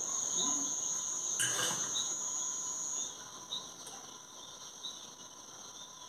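Night insects trilling: a steady high note, strongest for the first three seconds and then fainter, with short chirps repeating every second or so. A brief clatter comes about a second and a half in.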